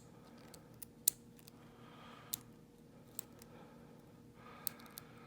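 Lock pick and tension wrench working in the keyway of a vintage Yale dual custody padlock: faint scraping with small, sharp metallic clicks at irregular intervals as the pick lifts pins over the warding.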